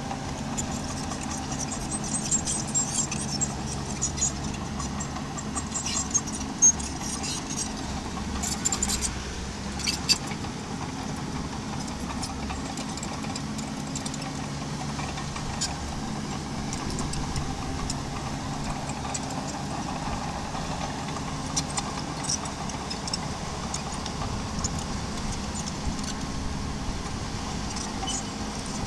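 Small bulldozer's diesel engine running steadily, with scattered metallic clinks and rattles that are thickest in the first ten seconds or so.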